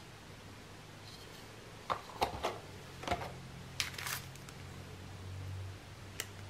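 Fishing tackle being handled: a plastic spool of braided line set down among packets of hooks and sinkers, and a plastic-packed card of eel hooks picked up, giving a few scattered clicks, taps and rustles of plastic packaging.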